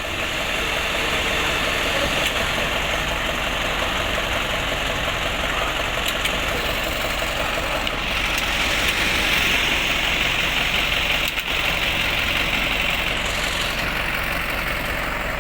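A motor vehicle's engine running steadily, with a continuous hum and a hiss that swells a little in the middle.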